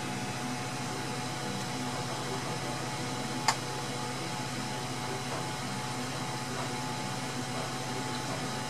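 Ender 3 Pro 3D printer with an SKR Mini E3 v1.2 board running quietly: a steady low hum and whir of its fans and stepper motors, its TMC2209 stepper drivers no longer making a weird noise now that a jumper on the board has been moved. A single faint click about three and a half seconds in.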